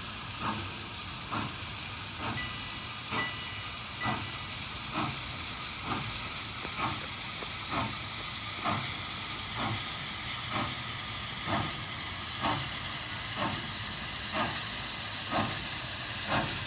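Steam locomotive chuffing at a slow, even beat of about one exhaust beat a second, over a steady hiss of steam.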